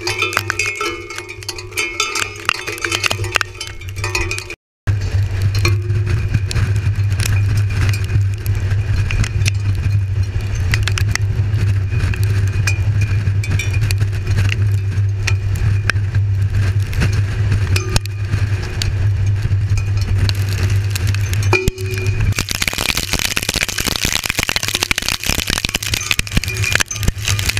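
Tornado winds buffeting a ground-level probe's microphone: a steady low rumble with constant clicking of debris striking the probe, cut by a brief dropout about five seconds in. Near the end it turns into a louder hissing rush as the tornado overtakes the probe.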